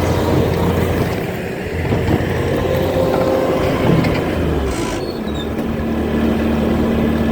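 Bobcat T595 skid steer's diesel engine running steadily, its note shifting about two-thirds of the way through.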